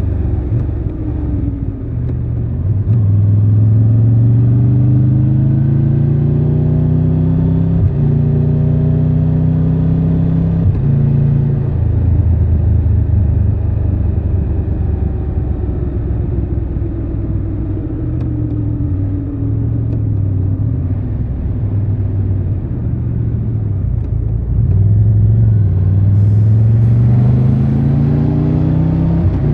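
Triumph Tiger 1200 Rally Pro's three-cylinder engine under way. Revs rise as it accelerates a couple of seconds in and again near the end, and fall away as the throttle is eased in between.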